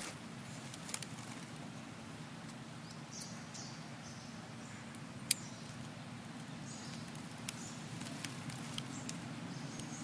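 Quiet outdoor background with a steady low hum and a few faint, sharp clicks and ticks scattered through it, one sharper click about five seconds in.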